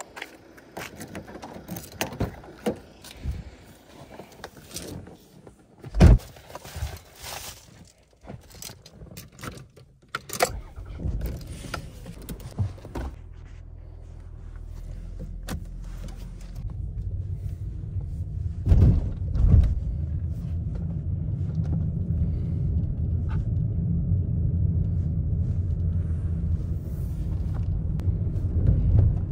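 Clicks, rattles and knocks, with one loud thump about six seconds in, then a car engine starts about ten seconds in and runs with a steady low rumble that grows louder.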